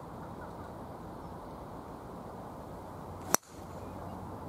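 A driver strikes a golf ball off the tee, making a single sharp crack a little over three seconds in, over steady wind noise on the microphone.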